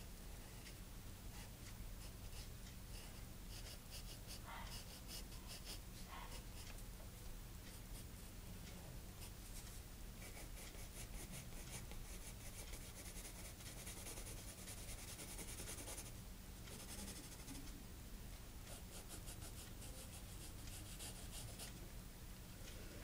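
Graphite pencil scratching on sketchbook paper in many short, quick strokes, faint, over a steady low hum.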